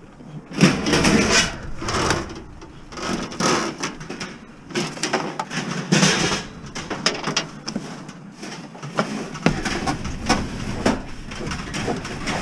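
Sheet-metal body of a gas double oven being shoved and slid into the back of a van, scraping and knocking against the floor and door frame in irregular bursts with sharp clicks.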